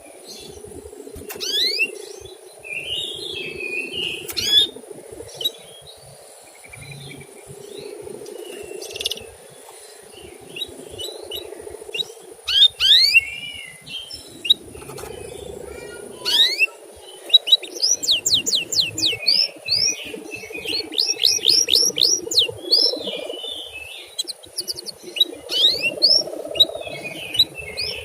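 Male canary chirping: short, quick rising chirps, turning into fast runs of them, about four or five a second, in the second half, over a steady low hum.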